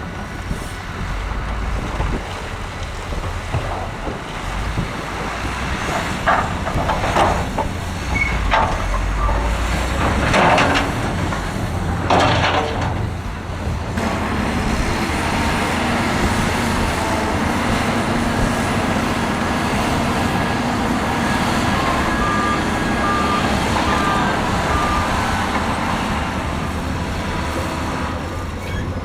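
Heavy diesel earthmoving machinery running with a steady low rumble, with several short loud rushing noises partway through. Later a reversing alarm beeps four times.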